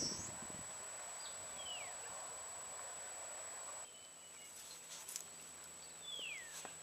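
Quiet open-air ambience with a bird calling twice, each call a short falling note, about two seconds in and again near the end. The background hiss drops about four seconds in, after which there are a few faint clicks and rustles.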